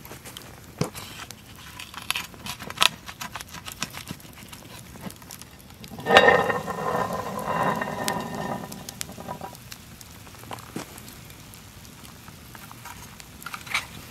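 Campfire crackling and popping. About six seconds in, the coal-covered lid of a cast iron Dutch oven is lifted and slid off, giving a loud grating metal scrape with a faint ringing that lasts about three seconds.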